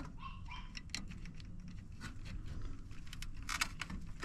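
Scattered light clicks and rustles of hands handling wiring and small parts, over a low steady hum.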